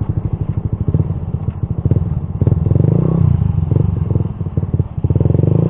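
Suzuki GSX-R150's single-cylinder engine through an R9 Misano aftermarket racing exhaust, running under throttle with a fast, even pulse that rises and falls in pitch as it is revved.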